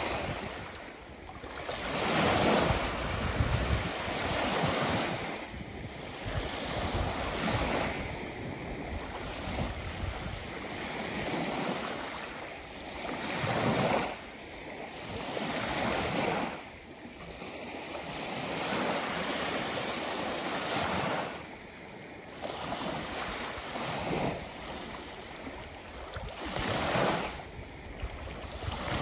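Ocean surf: waves breaking and washing up the shore, the rush swelling and falling back every two to three seconds.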